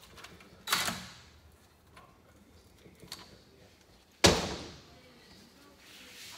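Hard knocks of tools and engine parts being handled on a workbench during an engine teardown: one knock under a second in, a few light clicks, and a louder knock a little after four seconds that dies away over about half a second.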